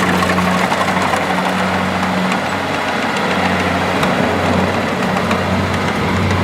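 Kubota DC-70 Plus combine harvester's diesel engine and machinery running steadily, a constant low hum under a dense mechanical clatter.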